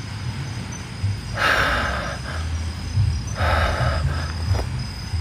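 Heavy breathing close to the microphone: loud, hissing breaths about every two seconds from someone out of breath, over a low rumble and a faint steady high insect trill.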